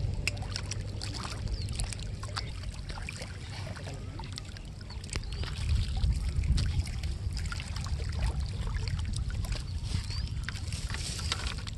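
Wind rumbling on the microphone and water lapping at a rocky lake edge, with many small clicks and ticks scattered throughout; the rumble grows louder about halfway through.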